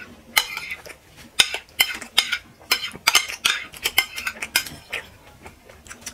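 Metal spoon and fork clinking and scraping against white ceramic dinner plates of rice and mutton, about a dozen sharp, irregular clinks.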